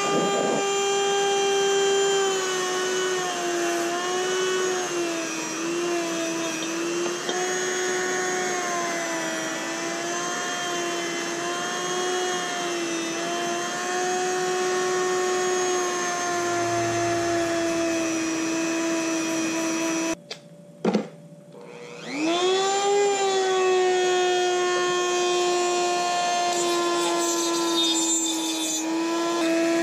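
Handheld electric rotary tool running at high speed against a metal coolant pipe, a steady whine that dips and wavers in pitch as the bit bears on the metal. About 20 seconds in it switches off, and about two seconds later it starts again, its pitch rising as it spins up.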